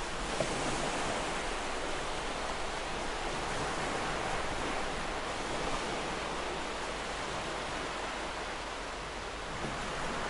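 Ocean surf: a steady, even wash of waves with no separate breakers standing out.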